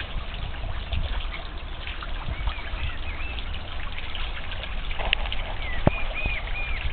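Small garden fountain trickling and splashing steadily into a pond, with a few short, high bird chirps about two and a half seconds in and again near the end.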